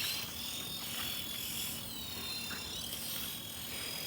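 Toy helicopter's small electric motor and rotor running with a high whine that rises and falls in pitch as the motor speeds up and slows, over a buzzing hiss.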